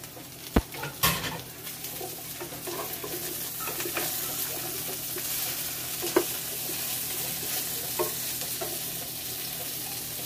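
Green beans, potatoes and carrots sizzling in butter in a nonstick pan, the hiss swelling after about two seconds. Two sharp knocks come about half a second and a second in, and a few light clicks follow as the vegetables are stirred with a wooden spatula.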